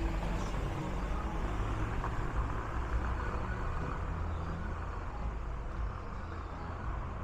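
A motor vehicle's engine running close by, a steady low rumble with traffic noise.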